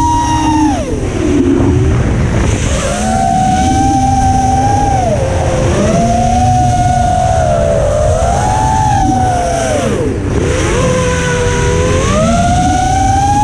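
An FPV racing quadcopter's brushless motors whine, the pitch rising and falling constantly with the throttle and dipping sharply twice. They are heard from the camera on board over a steady low rush of wind and vibration.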